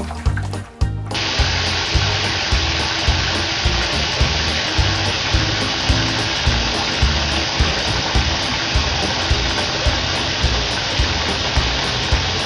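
Steady gush of running water, starting abruptly about a second in, over background music with a steady beat.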